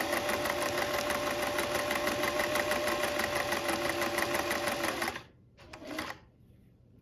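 Singer Slant-O-Matic electric sewing machine stitching at a steady fast speed with a rapid, even needle rhythm over its motor hum, stopping about five seconds in. A brief small rattle of handling follows.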